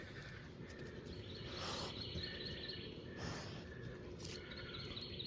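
Wild birds chirping and calling faintly over a steady outdoor background hiss.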